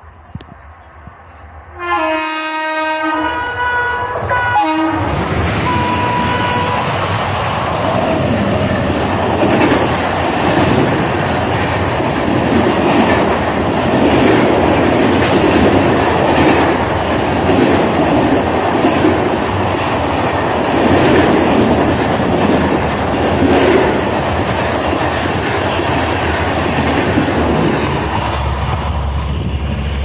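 A WAP-7 electric locomotive's horn sounds one blast of about three seconds, starting about two seconds in. Then a train of LHB coaches passes close at speed, a steady loud rush with wheels clattering over the rail joints, easing off slightly near the end.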